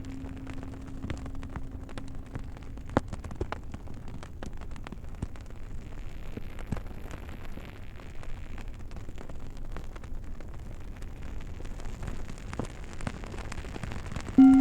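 Campfire crackling, with scattered sharp pops over a low bed of fire noise, while a low singing bowl's ringing tone fades out over the first few seconds. Right at the end a low singing bowl is struck again and rings loudly.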